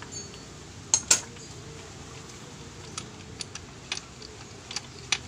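Metal hand tools clinking against the motorcycle engine, with two sharp knocks about a second in and then a scatter of light ticks and clicks, as the number 4 spark plug is worked on.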